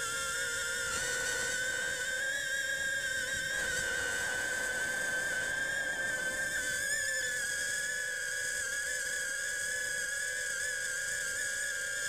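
Parrot Bebop 2 quadcopter's motors and propellers whining steadily in flight, heard from a camera taped to the drone, with a rushing noise underneath. The flight is sped up fourfold.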